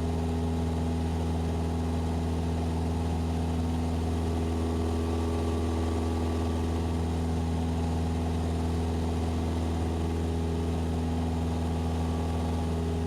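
Cessna 172SP's four-cylinder Lycoming engine and propeller running steadily in flight, an even drone with no change in power.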